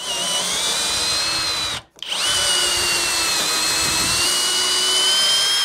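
Power drill boring into the edge of a wooden door with a stubby auger bit, running in two goes with a short stop about two seconds in as the bit is pulled back to clear the flute. On the second, longer run the motor's whine sags a little under load, then rises again until it stops near the end.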